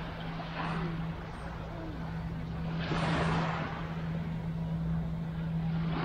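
Small waves washing onto the beach, surging about every three seconds with the loudest near the middle. Under them runs a steady low motor hum.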